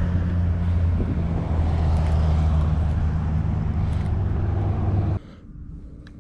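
A steady low engine-like drone with a hum, cutting off abruptly about five seconds in.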